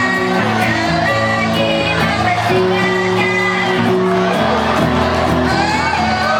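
A live band playing a song with a singer over sustained chords, heard through a PA system, with some crowd noise.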